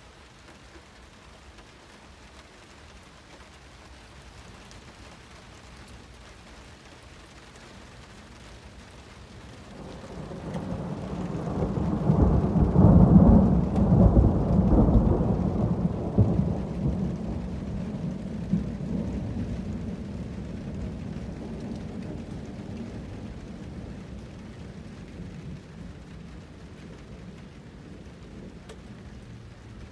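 Thunder rumbling over steady rain. A low rumble builds about ten seconds in, is loudest a few seconds later, and then dies away slowly.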